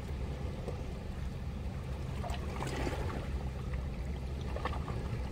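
Steady rush and low rumble of a fast-flowing river, with a few faint ticks over it.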